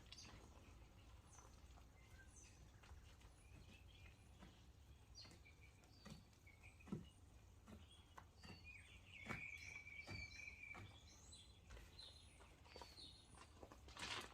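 Near silence with faint bird chirps and calls, including one high held note about two-thirds of the way through, and a few soft clicks.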